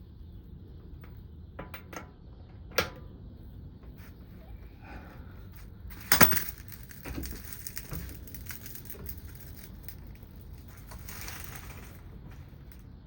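Scattered knocks and clinks of tools and metal brake parts being handled during brake reassembly: one sharp knock about three seconds in, and a louder clatter about six seconds in, followed by quieter clicks.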